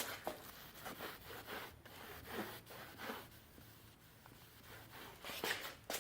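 Sandpaper rubbed by hand over a plastic headlight lens in short, irregular strokes, touching up spots at 600 grit. The strokes are faint.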